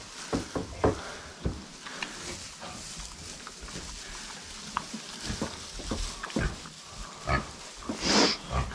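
Pigs grunting and snuffling as they root through and chew fresh straw bedding, the straw rustling under their snouts. Short sounds come scattered throughout, with a louder one near the end.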